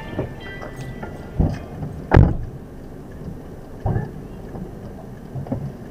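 Knocks and thumps inside a parked car as passengers move about and gather their belongings, with one heavy thump about two seconds in, like a car door shutting.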